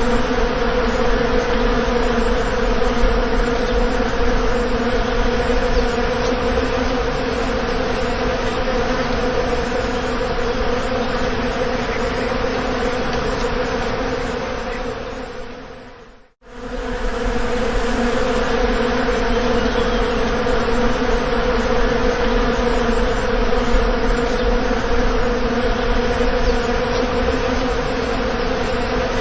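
Bees buzzing in a steady, loud drone. About halfway through it fades out to a moment of silence and fades back in.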